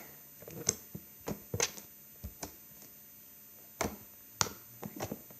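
Slime being squished and kneaded by hand, giving a series of short, sharp popping clicks at uneven intervals, about eight in all.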